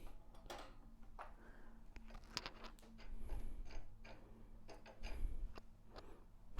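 Scattered clicks, taps and light knocks of small plastic and metal light-stand parts being handled, with duller thumps about three and five seconds in.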